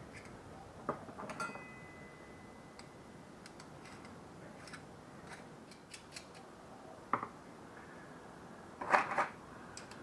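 Small parts and hand tools being handled on a workbench: scattered light clicks and taps, a few sharper knocks about a second in and around seven seconds, and a louder short clatter near the end.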